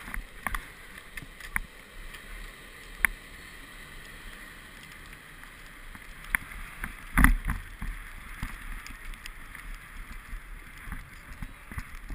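Skis sliding and scraping over packed snow, a steady hiss, with a few sharp clicks in the first three seconds and one loud thump about seven seconds in.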